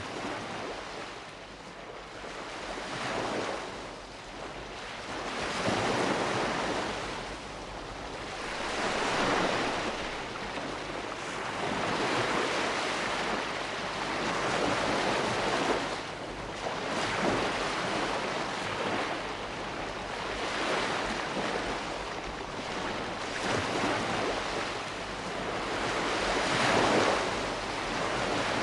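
Surf: waves rushing in and washing back, a continuous hiss that swells and falls every few seconds.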